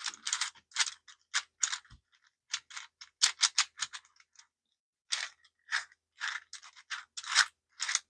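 Fully 3D-printed PLA Rubik's cube being turned by hand: its unlubricated plastic layers click and clatter in quick, irregular bursts, with a short pause about halfway through. The parts are still rough and not yet worn in.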